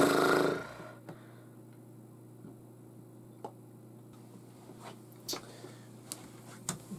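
A nauseated teenage boy gives one short, loud guttural sound over a plastic bucket right at the start. After it come quiet room tone and a few faint clicks.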